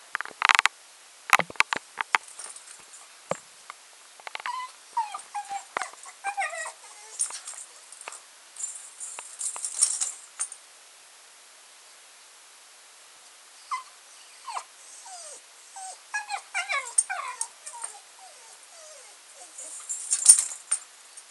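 Jagdterrier whining in two spells of short, high-pitched, falling whimpers, with a quiet gap between them. A few sharp noises come near the start and a loud burst comes near the end.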